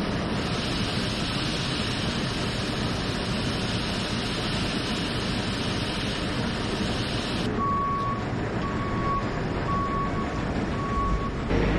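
Wheat pouring from a JCB 532-70 Agri Super telehandler's tipped bucket through the grid into a grain dryer intake pit: a steady rushing hiss over the running engine. About seven and a half seconds in the pouring stops abruptly and the telehandler's reversing alarm beeps four times, about a second apart.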